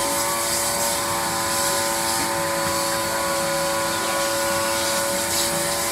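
Steady hum of a running motor, holding an even pitch with no change in speed.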